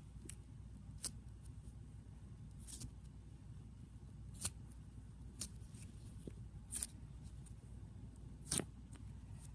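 Fingers squishing and kneading translucent glitter slime, with about six sharp little clicking pops of air pockets in the slime, the loudest near the end, over a low steady hum.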